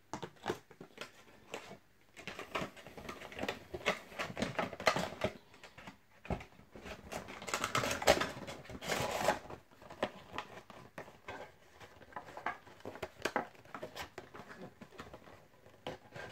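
Scattered clicks and taps with two longer spells of rustling, a few seconds in and again around eight seconds in: a Funko Pop vinyl figure and its cardboard-and-plastic window box being handled and packed.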